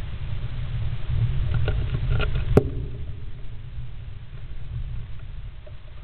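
Great spotted woodpecker shifting and preening inside a wooden nest box: low rustling and scraping against the wood, with a few small clicks and one sharp knock about two and a half seconds in.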